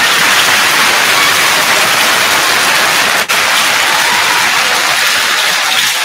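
Audience applauding: a dense, steady clapping that begins abruptly and tapers near the end.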